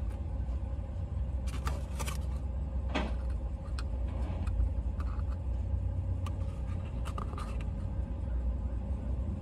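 Steady low rumble of a car's cabin with the vehicle running, with a few soft clicks and rustles as a cardboard food box is handled.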